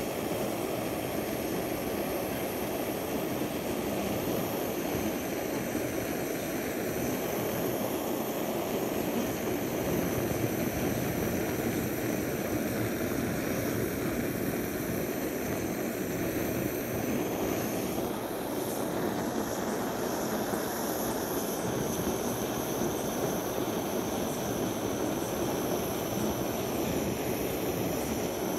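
Handheld gas-canister blowtorch burning with a steady rushing noise as its flame is played over solid ash wood to char the surface.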